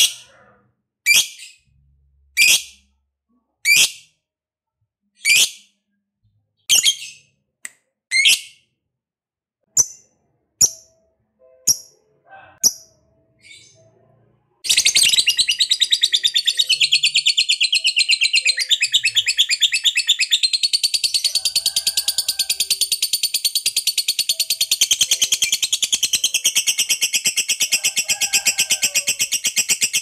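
A lovebird giving single sharp, high chirps about every second and a half, then, about halfway through, breaking into a long, unbroken, rapid chattering trill. This trill is the 'ngekek' that lovebird keepers prize.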